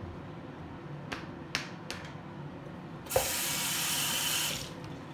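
A few light clicks, then a sudden hiss that lasts about a second and a half and fades out.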